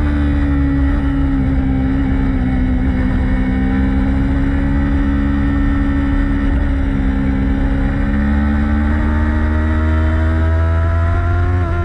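Race motorcycle engine running hard at steady high revs. The pitch holds, climbs slowly through the second half, then drops sharply at the very end as the throttle is closed or a gear is changed, all over a loud low rush.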